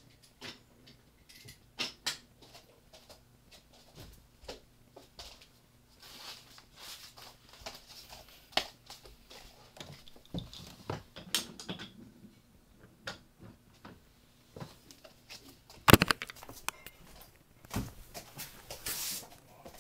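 Scattered light clicks and knocks of handling, the sharpest one about 16 seconds in, with a short scraping hiss near the end.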